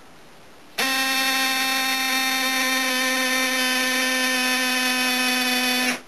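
Small electric air compressor running with a steady whine, switched on about a second in and cut off just before the end, pumping air to raise a model submarine's periscope.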